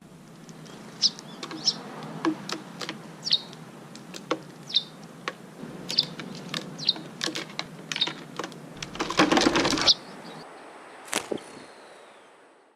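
Small birds chirping, short calls every second or so, among sharp clicks and taps. About nine seconds in comes a loud second-long rustle, then a single sharp knock.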